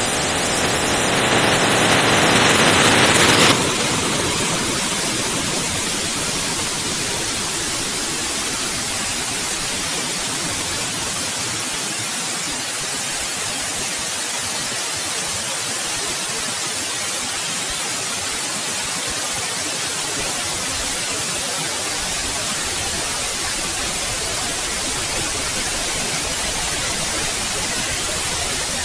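Steady white-noise hiss. For the first three and a half seconds it is louder and duller, rising a little, then it drops suddenly to an even, full-range hiss that holds steady.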